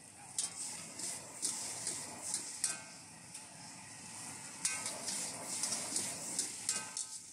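Food sizzling in a hot wok while a metal spatula scrapes and knocks against it in irregular strokes, with a few brief metallic squeals.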